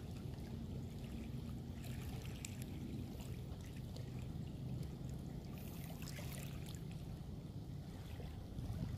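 Small waves lapping and washing over a pebble beach, with faint crackling in the stones, over a low steady hum. The washing grows a little louder near the end.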